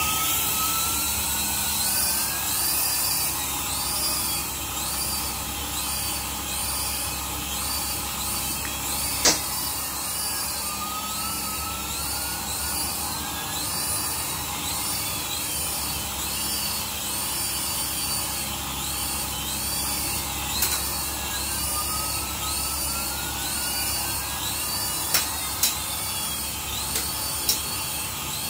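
Small RC toy helicopter's electric motors and rotors whining steadily, with a high pitch that rises and falls in a repeating pattern about once a second. A few sharp knocks break in, one about a third of the way through and several close together near the end.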